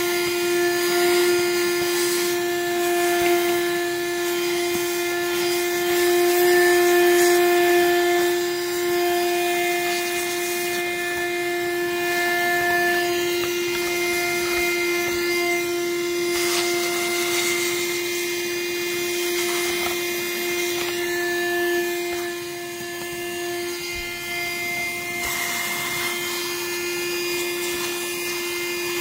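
Small electric motor running at a steady pitch with a constant hum and a hiss of rushing air, while dust is cleaned off a graphics card.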